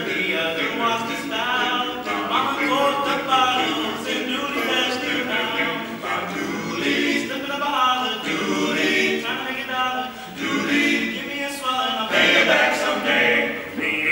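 Male barbershop quartet singing a cappella in four-part close harmony: two tenors, baritone and bass, the voices moving together in chords.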